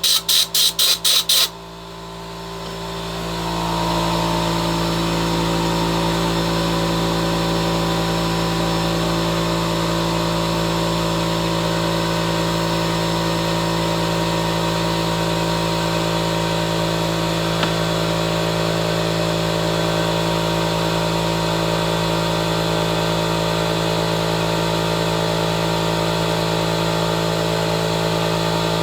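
Compressed-air blow gun fired in about seven quick bursts. Then the shop air compressor's motor starts and builds over a couple of seconds to a steady, loud drone with a fixed pitch.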